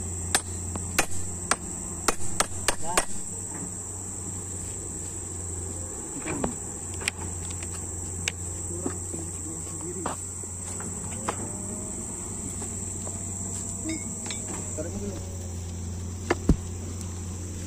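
A hammer striking the steel track of an amphibious excavator: a quick run of about eight blows in the first three seconds, then a few single blows, the loudest near the end. Under it runs a steady, high insect chorus and a low, steady hum.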